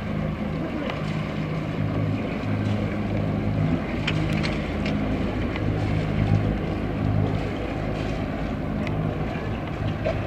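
Sailing yacht's inboard engine running steadily as the boat motors along with its sails furled: a low, even hum.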